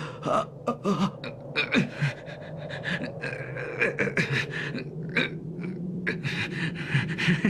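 A man's voice groaning and gasping in pain in short, strained bursts, without words: an animated character, hurt, catching his breath.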